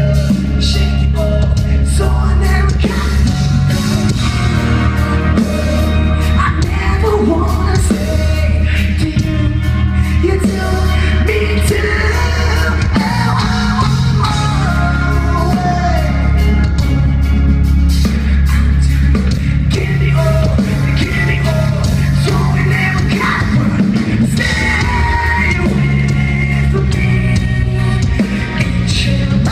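Live post-hardcore band playing at full volume, heard from the crowd: a singer singing and yelling into the microphone over electric guitars, drums and a heavy bass.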